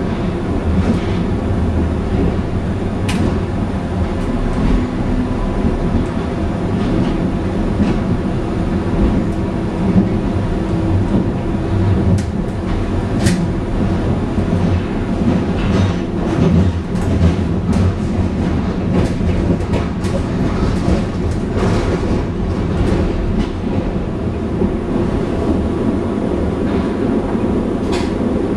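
Berlin U-Bahn train heard from inside the car while running through the tunnel: a steady low rumble with scattered sharp clicks and rattles.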